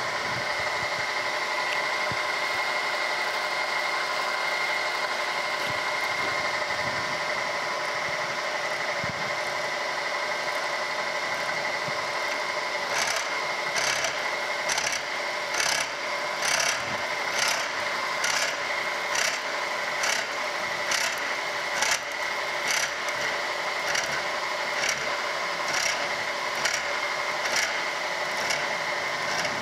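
Slitting saw on a Wells Index vertical milling machine cutting a screwdriver slot into a screw head under cutting oil, over the steady whine of the running mill. About halfway through, a regular scrape sets in, a little more than once a second, as the saw works through the cut.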